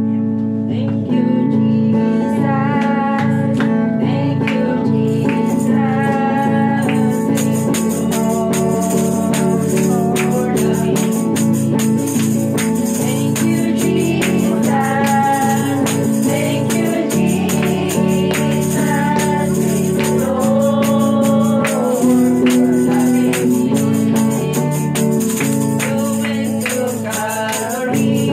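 A woman singing a Christian worship song to electric guitar and backing music. A steady percussion rhythm runs through it and grows brighter about seven seconds in.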